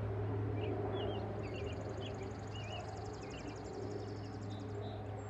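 Cessna 208B Caravan's single turboprop engine and propeller flying past, a steady low drone that slowly fades as the plane moves away. Small birds chirp and an insect trills in rapid pulses.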